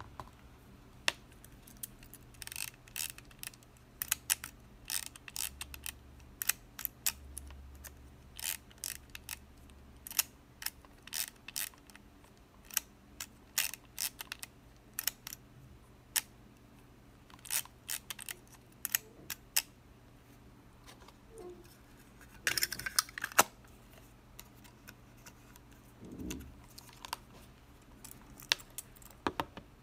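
Olympus PEN EE-S half-frame film camera being handled: scattered sharp, small mechanical clicks and knocks, with a quick flurry of them about three-quarters of the way through.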